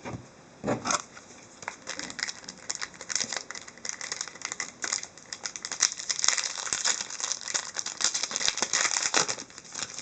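Plastic trading-card pack wrapper crinkling and tearing as it is opened, a dense run of crackles from about two seconds in, with a brief handling rustle just before.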